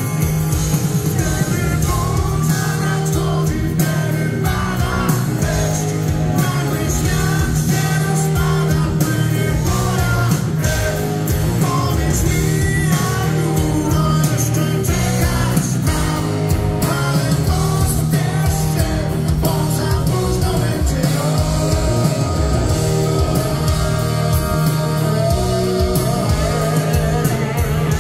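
Live rock band playing: a male lead vocal over electric guitars, bass guitar and drums, with a heavy low end.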